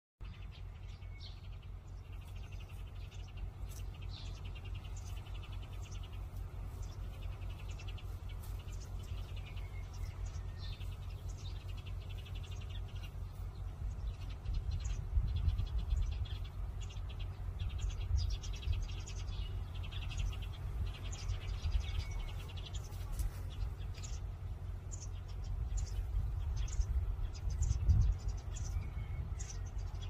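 Outdoor wildlife calls: birds and insects chirping and trilling again and again, over a steady low rumble that grows louder about halfway through and again near the end.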